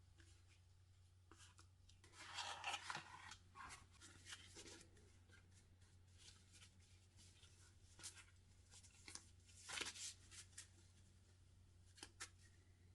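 Faint rustling and scraping of packaging being handled, in short bursts (the longest about two seconds in, another near ten seconds), over a steady low hum.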